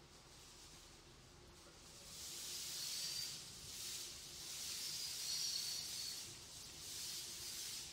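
Cooking oil hissing and sizzling as it is poured into a hot aluminium pot, swelling about two seconds in and rising and falling in waves.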